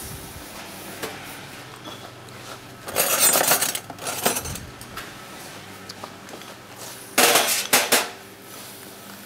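Ceramic pudding basins clinking and scraping as they are handled and set down on a stainless-steel worktop, in short bursts of clatter about three seconds in and again about seven seconds in.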